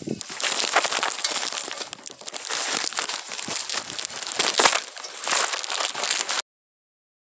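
Korean pine needles and twigs rustling and scraping against the phone as it is pushed through the branches: a dense, crackling rustle that cuts off suddenly near the end.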